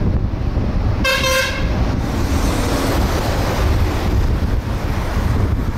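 Steady wind rumble on the microphone and road noise from a moving car, with a single short vehicle horn toot lasting about half a second, about a second in.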